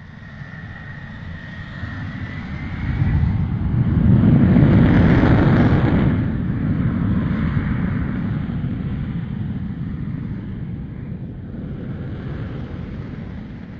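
A low rumbling roar that fades in, swells to its loudest about four to six seconds in, then slowly dies away.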